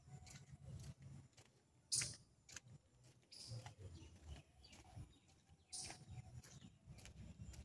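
Footsteps on concrete paver tiles, soft regular steps with a sharper scuff about two seconds in and another near six seconds, over a low rumble.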